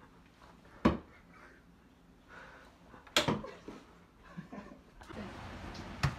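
Thrown darts striking: two sharp impacts about two seconds apart, in a small hallway. Near the end a steady outdoor background hiss takes over.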